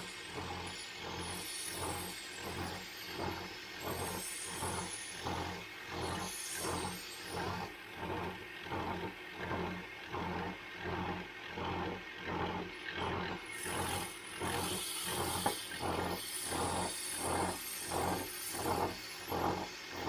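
Belt sander running with a steel crate hammer multi-tool pressed against the abrasive belt, grinding off rust and black paint. A steady motor hum with a regular pulse about twice a second, and a brighter grinding hiss at times.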